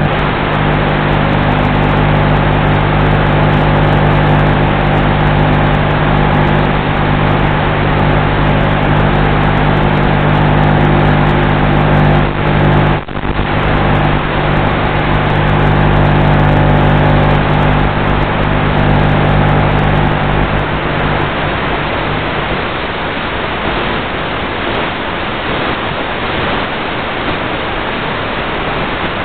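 Onboard sound of a Bixler 3 electric RC plane in flight, as heard through its FPV camera: a steady, even-pitched hum over a rushing hiss. About 21 seconds in the hum drops away, leaving only the even hiss.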